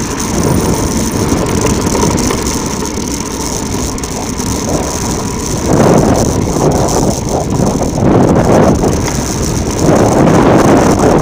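Bicycle rolling fast downhill over rough ground, with wind rushing over the microphone. The noise grows louder and gustier from about six seconds in.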